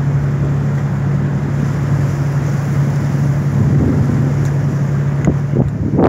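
Cruise boat's engine running with a steady low hum, under a rushing haze of wind and water. A few short knocks come near the end.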